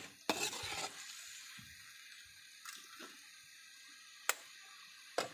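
Chopped amaranth greens sizzling in a hot wok as they are stirred with a spatula, with a louder stirring burst about half a second in. Two sharp taps come near the end.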